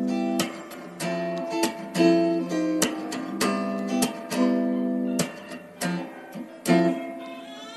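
Background music of an acoustic guitar strumming chords at an easy pace.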